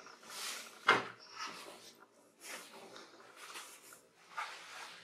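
Footsteps scuffing and clothing rustling as a person edges through a doorway, with one sharp knock about a second in.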